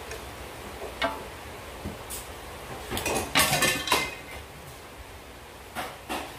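Screwdriver and small metal parts clinking and knocking against the plastic back of a flat-screen TV. Single knocks come at about one and two seconds in, then a dense, loud clatter about three seconds in, and two more knocks near the end.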